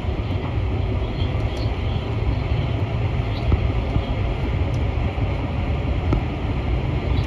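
Steady low rumble heard from inside an MP14 rubber-tyred metro train as it runs, with a few faint clicks.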